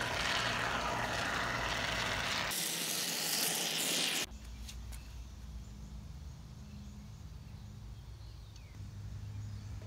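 Aerosol can of Great Stuff expanding foam hissing as foam is sprayed through its straw into a gap. The hiss cuts off suddenly about four seconds in, leaving a quieter low steady hum.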